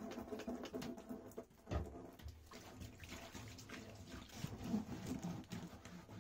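Hands scrubbing and turning a wet, soapy cardboard box in a bathtub: faint rubbing with scattered small knocks and taps as the box is handled.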